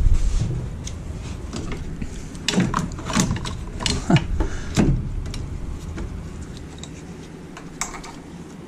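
Socket wrench clinking and scraping against metal bolts and brackets in an engine bay as it is worked onto a bolt: a cluster of irregular clicks and scrapes from about two and a half to five seconds in, then a single click near the end.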